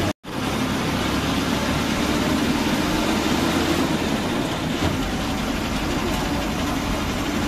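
Bus engine and road noise, steady and continuous, with a brief dropout to silence just after the start.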